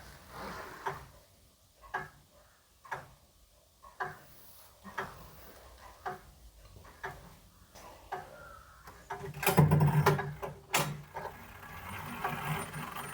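Grandfather clock ticking slowly, about once a second. About nine seconds in, a louder clatter of knocks and rattling with a low hum takes over.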